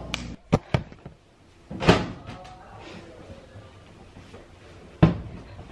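Scattered clicks and knocks from a camera being handled and set in place, with a louder knock about two seconds in and another near the end.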